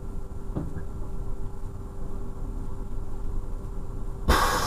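Class 628 diesel railcar heard from its cab on the move: a steady low rumble of engine and wheels with a constant engine tone. Near the end a sudden loud hissing noise cuts in.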